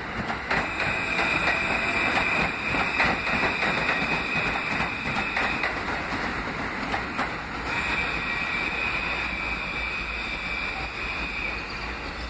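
R160 subway train running past on steel rails, a continuous rumble with wheels clicking over rail joints. A steady high-pitched squeal is heard twice, with a short break about six seconds in.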